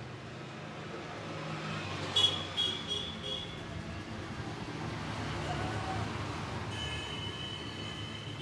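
Steady roadside traffic rumble, with four sharp strikes in a quick run a little over two seconds in, each leaving a brief high ring, and a steady high-pitched tone starting near the end.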